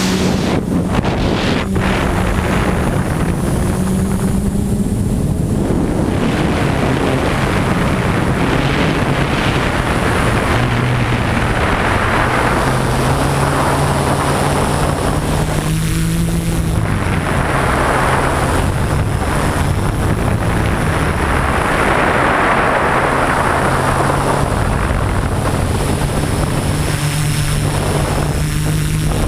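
Homemade camera drone's motors and propellers buzzing in flight, their pitch stepping up and down as it manoeuvres, with wind rushing over the microphone.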